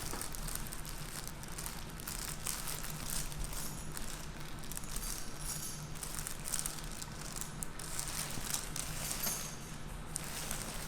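Soft crinkling and rustling from handling on a treatment table, over a steady low hum.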